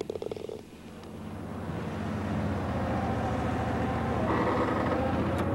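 Engine of a turf utility vehicle carrying a spray tank, running steadily and growing louder as it drives closer. A quick run of light clicks comes at the very start.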